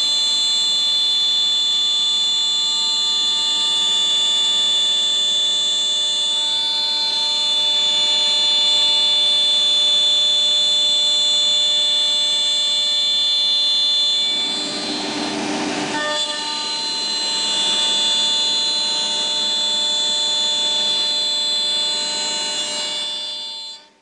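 CNC router spindle running at high speed with a steady high-pitched whine as the bit cuts a hand rail out of a wooden sheet. About 15 seconds in, the sound turns rougher and noisier for a second or two, then the whine settles again before cutting off abruptly just before the end.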